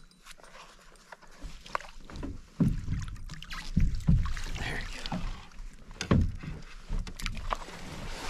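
A lake trout being landed beside a canoe: water splashing and a series of low thumps and knocks against the hull as the fish is netted and lifted aboard, starting about two and a half seconds in.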